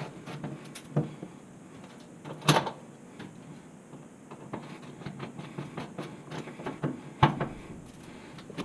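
Hand screwdriver driving a Phillips screw into the sheet-metal bottom panel of an oven: irregular small metallic clicks and scrapes, with louder knocks about a second in, around two and a half seconds and near the end.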